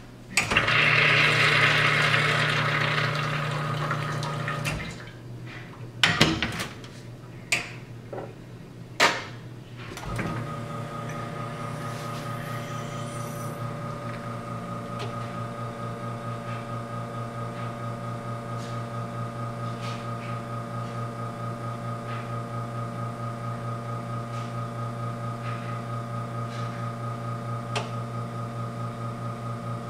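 ECM Technika espresso machine: for the first few seconds water rushes from the group head with the pump running, then several sharp metal clacks as the portafilter is locked into the group and the glass set down. From about ten seconds in, the pump runs with a steady, evenly pulsing hum while the double shot pours.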